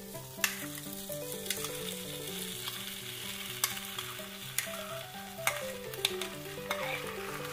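Food sizzling in a frying pan as soaked sago pearls are added to fried spiced potatoes and stirred with a wooden spatula, with a light knock about once a second. A soft background melody of held notes plays underneath.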